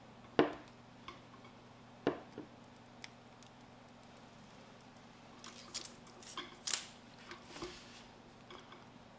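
Hands handling a phone and the film screen protector being fitted to it: a sharp tap about half a second in and another near two seconds, then a cluster of soft crackles and clicks later on, over a faint steady hum.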